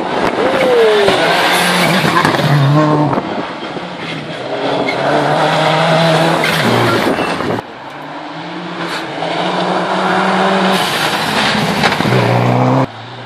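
Rally cars, Subaru Imprezas among them, driving fast past on a loose gravel stage: engines revving up hard and stepping down through the gears, with the hiss of tyres on gravel. The sound cuts off abruptly about seven and a half seconds in and again near the end, where one car's pass gives way to the next.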